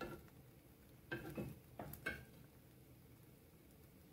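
A few light knocks and clinks of kitchenware being handled, one at the start and a small cluster about a second in, over a faint steady background.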